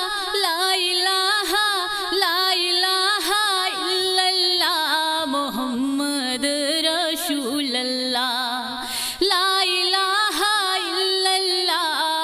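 Music: the introduction of a devotional song, a melodic line of long, wavering, ornamented notes with no words.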